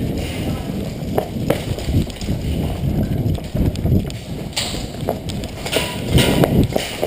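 Running footsteps, a thump about every half second, with gear jostling against a body-worn microphone. A few sharp clicks cut in.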